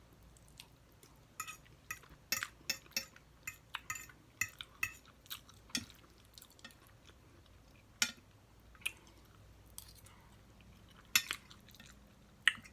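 Eating from a plate close to the microphone: short sharp clicks and clinks of cutlery on dishes with some chewing, many in quick succession in the first half, then a few scattered ones.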